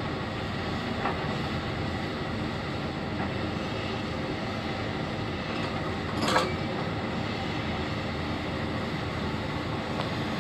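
Hitachi Zaxis 470 excavator's diesel engine running steadily while its bucket works a gravel pile, with a short, loud clatter of stones about six seconds in.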